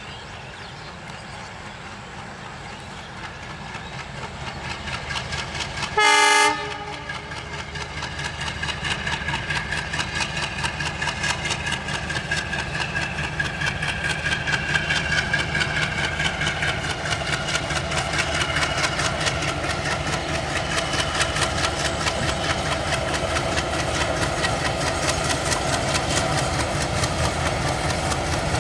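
WDM-3A diesel locomotive hauling a passenger train as it approaches, its engine and wheels getting steadily louder. One short horn blast about six seconds in, then a quickening run of wheel clicks over the rail joints.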